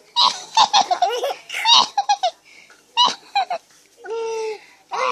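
Baby laughing in repeated high-pitched bursts of giggles and belly laughs, with one steady held vocal note about four seconds in.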